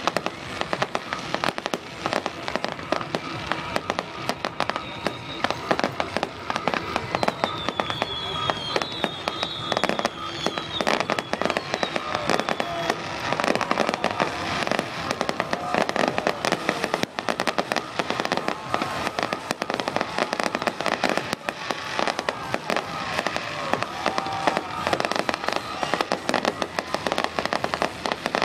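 A continuous fireworks barrage: rapid, overlapping bangs and crackles, with a few high falling whistles about eight to twelve seconds in.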